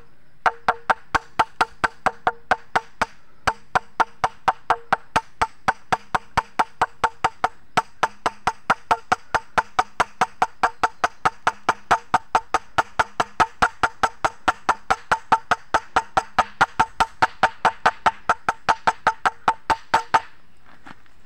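Wooden mallet tapping a new 6302 ball bearing into its seat in a motorcycle's rear wheel hub: a long, steady run of light blows on the bearing's outer edge, about four a second, each ringing briefly. The tapping stops about a second before the end.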